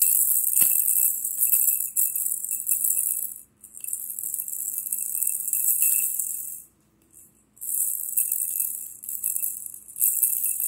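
A baby's plastic rattle ball is shaken over and over, giving a high, hissing rattle. It stops briefly about three and a half seconds in and again for about a second a little past halfway.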